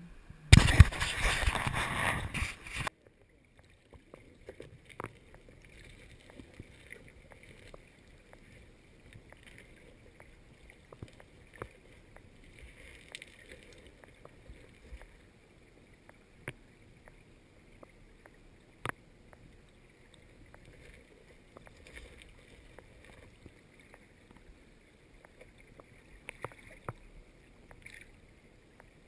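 Loud water splashing and rushing as the GoPro's waterproof housing is plunged into the river, cutting off abruptly about three seconds in. This gives way to the faint, muffled sound of the camera underwater, with scattered sharp clicks and ticks.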